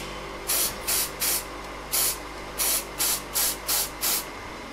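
Aerosol can of spray adhesive hissing in about ten short bursts, each a fraction of a second long with brief gaps between.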